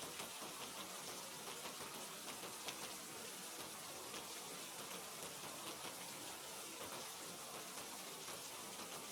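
Steady rain falling: an even hiss with fine drop ticks through it.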